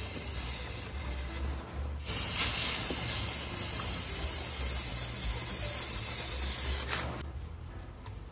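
A steady spraying hiss starts suddenly about two seconds in and cuts off about five seconds later.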